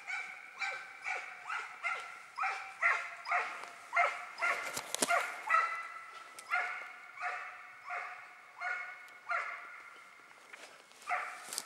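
Hunting dog barking steadily in a regular run of about two barks a second, pausing briefly near the end, as it trails and drives fallow deer.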